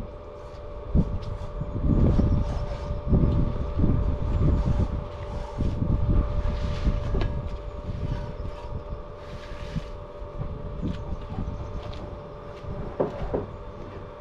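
Stihl TS410 two-stroke cut-off saw running steadily, likely idling just after cutting through 2-inch steel. Irregular low rumbling and a few knocks are strongest in the first half and then die down.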